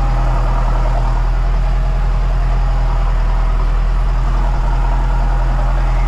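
Valtra tractor's diesel engine running steadily, a deep even drone with no change in pitch.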